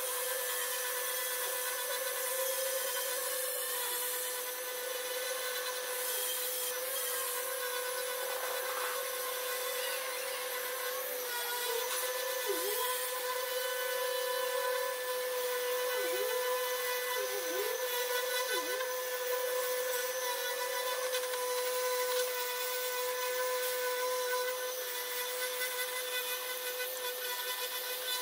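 Electric random orbital sander with dust extraction sanding body filler on a car bumper: a steady motor whine over the hiss of abrasive rubbing the surface. The whine dips briefly in pitch four times about halfway through.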